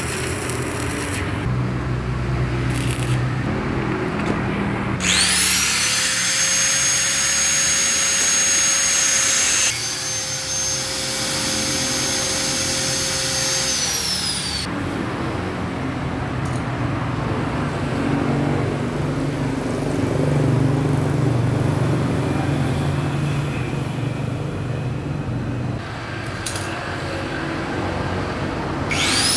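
Arc-welding crackle at first. About five seconds in, a hand-held angle grinder spins up to a steady high whine as it works on the weld on a motorcycle magneto rotor, and it winds down after about nine seconds. Rough workshop noise follows, and the grinder spins up again at the very end.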